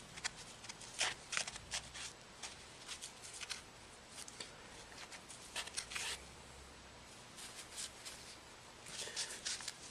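Faint, irregular rubbing and light scraping of a cloth or wipe working over a phone's frame, cleaning it with alcohol.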